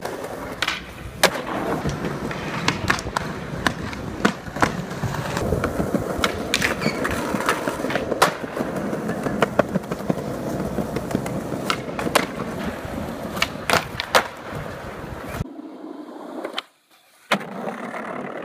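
Skateboard wheels rolling over smooth pavement, with many sharp clacks of the board's tail popping and the wheels landing. Near the end the rolling changes, cuts out for a moment and then starts again.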